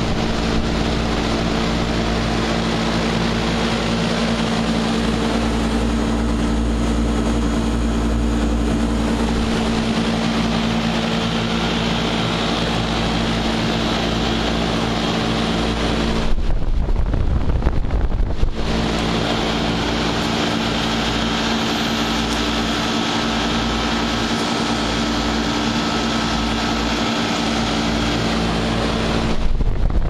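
American Standard heat pump outdoor unit running: its three-blade fan whooshes steadily over a constant electrical hum. Briefly about halfway through, and again near the end, the fan's airflow buffets the microphone as a low rumble.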